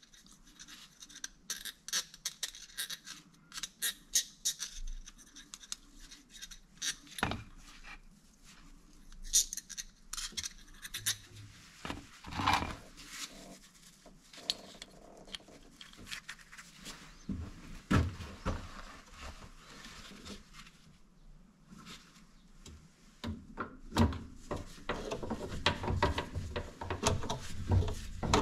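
Hand work on a car's rear shock absorber mounting: scattered light metal clicks and knocks with rubbing and scraping as a greased bolt and the shock are handled and fitted, growing busier near the end.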